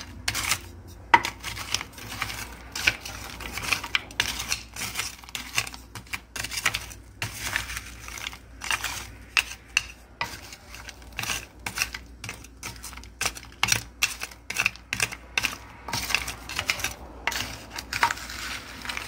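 Wooden spatula scraping and tapping against a glass baking dish as cubed sweet potatoes are tossed: an irregular run of clicks and scrapes.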